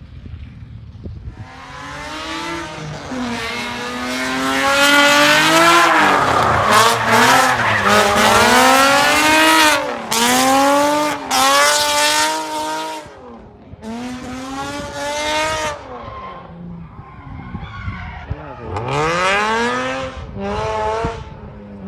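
A drift car's engine revving hard over and over, the pitch climbing and falling as the throttle is worked, with tyres squealing loudest as it slides past. It fades after about thirteen seconds, with two more sharp revs near the end.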